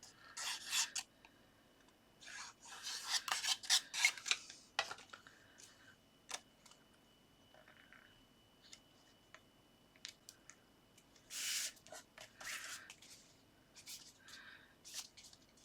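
Cardstock being handled and rubbed down as a matte layer is stuck onto a card base: short scraping and rustling bursts of paper, with a few light clicks.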